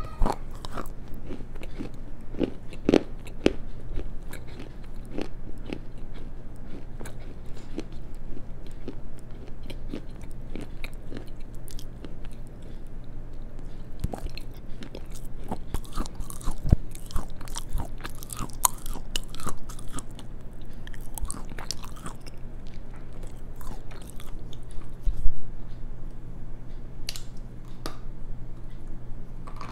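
Close-miked chewing of black slate and clay: crisp crunches and small cracks as pieces break between the teeth, with one louder crack near the end.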